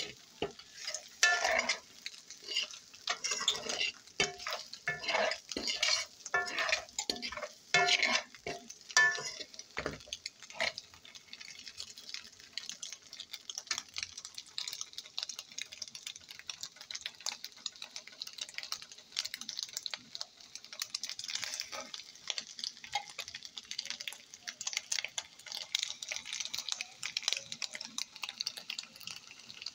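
A fork stirring and scraping scrambled eggs and onion around a frying pan while the eggs sizzle. Quick, dense scraping strokes fill roughly the first third, then the stirring turns to lighter clicks and taps over a steady sizzle.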